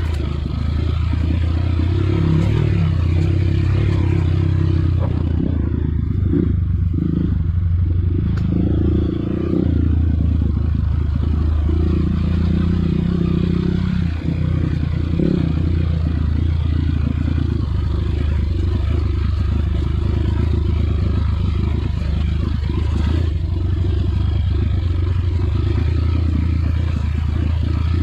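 Off-road trail motorcycle engine running while riding, its pitch shifting up and down with the throttle several times.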